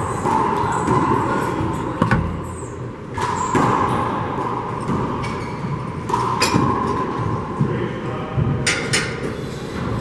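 A rubber handball being slapped by hand and smacking off the walls of a four-wall court during a doubles rally: several sharp smacks spread through, with two close together near the end.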